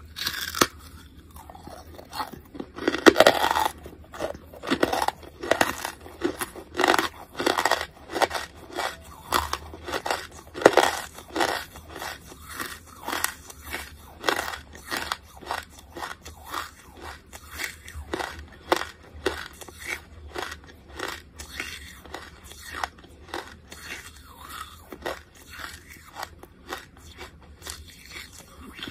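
Close-miked biting and chewing of lumps of charcoal: a steady run of crisp crunches as the charcoal is bitten and ground between the teeth, loudest about three seconds in and again around eleven seconds, then smaller, regular chewing crunches.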